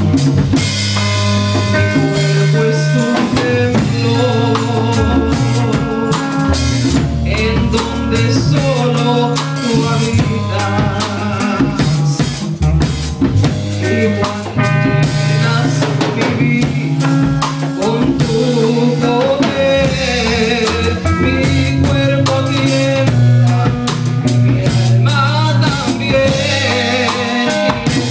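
Live church worship band playing a song: a drum kit keeps a steady beat under an electric bass line and long held keyboard chords, with a woman singing into a microphone over them.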